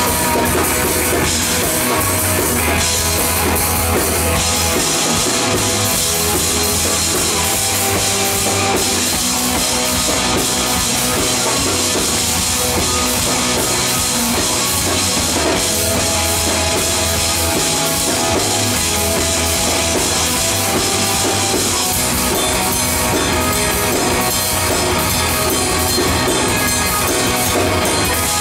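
Live rock band playing loud: drum kit and electric guitars, recorded from the audience at a club show.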